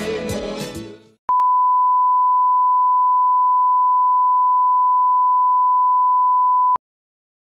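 Music fades out, then a steady 1 kHz test tone sounds for about five and a half seconds and cuts off abruptly. It is the broadcast line-up tone that runs with colour bars.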